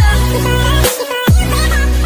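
Loud electronic intro music with heavy bass: deep held bass notes, each starting with a falling swoop, about one every second and a quarter.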